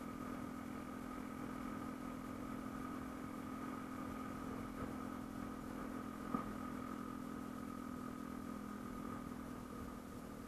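Yamaha M-Slaz motorcycle's single-cylinder engine running steadily at an unchanging pitch, with one short click about six seconds in.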